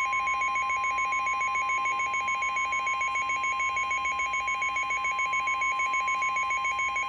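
NOAA Weather Radio 1050 Hz warning alarm tone, one steady high beep held throughout, with a faster two-pitch beeping pulsing over it about seven times a second. The tone signals that an emergency warning is about to be read.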